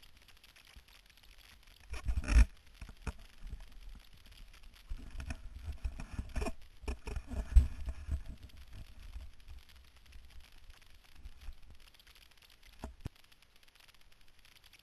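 Wind buffeting the camera's microphone in uneven gusts, mixed with handling knocks and rustling; a sharp knock about two seconds in and another near the middle, then a single click near the end.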